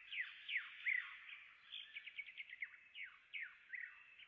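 Faint bird song: quick trills of short high notes alternating with clear whistles that sweep sharply downward, repeated several times.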